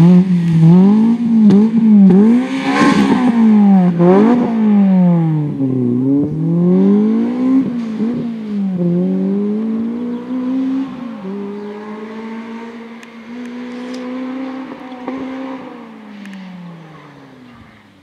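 Honda Civic Type R rally car engine at full throttle, its revs climbing and dropping sharply again and again, then pulling steadier at high revs while fading into the distance as the car drives away.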